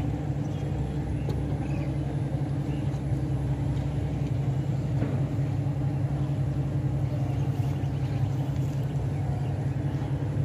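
A motor engine running at a steady speed, a low, even hum with no change in pitch or loudness.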